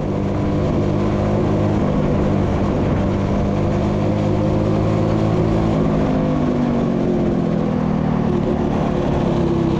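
Go-kart engine running steadily, its speed shifting a little up and down.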